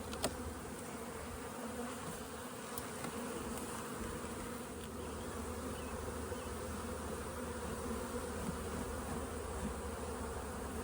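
Honeybees buzzing steadily around a hive, a constant hum with a couple of faint clicks.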